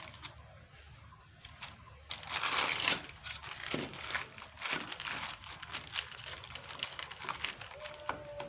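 Hands working with the parts of a range hood motor: a stretch of crinkling and scraping about two seconds in, then a run of light clicks, taps and scrapes.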